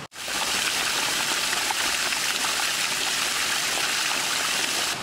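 Water pouring from a pipe spout among rocks and splashing into a shallow pool: a steady rushing splash that begins suddenly at the very start.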